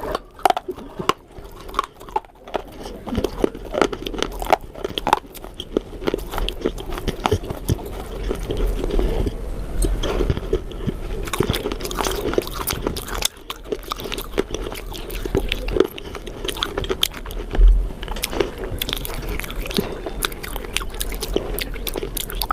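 Close-miked chewing and crunching: a steady run of irregular crisp bites and crackles as something crunchy is chewed.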